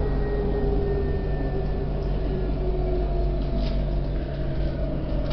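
Interior sound of an electric tram running on its rails: a low rolling rumble with the whine of the traction motors, the pitch slowly falling as the tram slows toward a stop.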